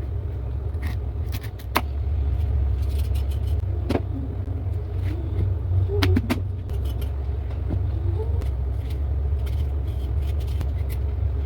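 Steady low rumble with scattered clicks and knocks.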